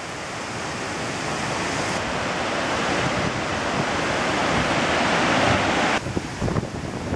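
Rushing, splashing river water at a ford, a steady hiss that slowly grows louder and then drops off sharply about six seconds in.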